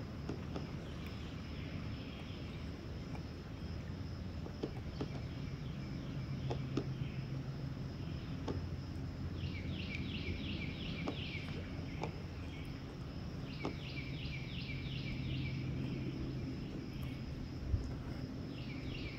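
Natural outdoor ambience: a steady high insect drone with scattered light ticks over a low rumble. Two runs of quick descending chirps, about five a second, come roughly ten and fourteen seconds in.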